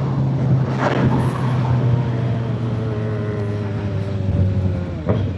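Inline-four sportbike engine running on the move, its note slowly falling as the motorcycle slows, with wind noise over it.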